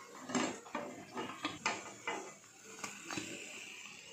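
Slotted steel spatula clinking and scraping against a frying pan while lifting out deep-fried cutlets: several sharp knocks at irregular intervals.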